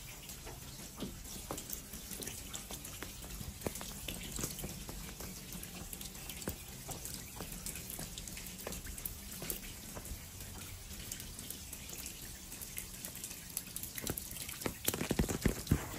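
Rainwater dripping and trickling: irregular drips and patters over a steady wash of running water, with a cluster of louder knocks near the end.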